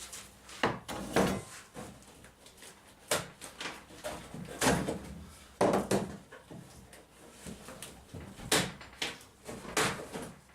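Wood being chopped out of a boat's bilge runner: about ten sharp knocks at uneven intervals, roughly one every second.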